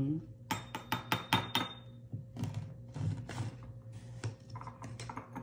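Metal spoon clinking and scraping against a jar while scooping powder: a quick run of about six sharp taps between half a second and a second and a half in, one ringing briefly, then scattered softer knocks.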